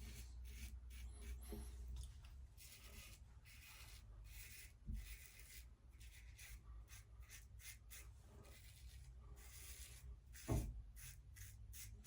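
Slant safety razor scraping through lathered stubble in many short strokes, a faint rasping hiss. Two dull thumps, the louder near the end.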